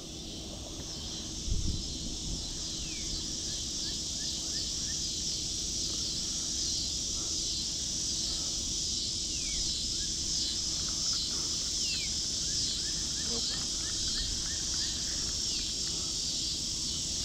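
Steady high-pitched chorus of insects, with a few short falling bird chirps over it. A brief low thump about a second and a half in.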